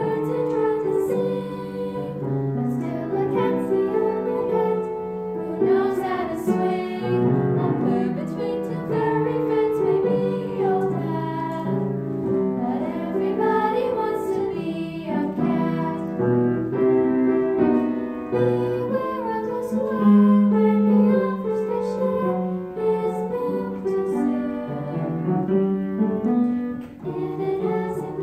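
Four girls singing together with grand piano accompaniment, the voices holding sung notes over the piano.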